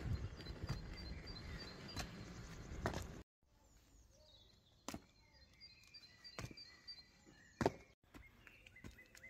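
Sneakers landing and slapping on outdoor concrete steps as someone jumps down the stairs: a few sharp separate footfalls, the loudest about seven and a half seconds in. For the first three seconds they sound over a rough rumbling noise that cuts off suddenly.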